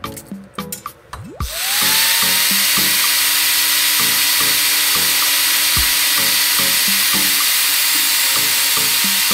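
An angle grinder with an abrasive cut-off disc, mounted in a cut-off stand, spins up with a rising whine about a second and a half in. It then runs at a steady high whine under a loud hiss as it cuts through a thin metal rod. Background music with a beat runs underneath.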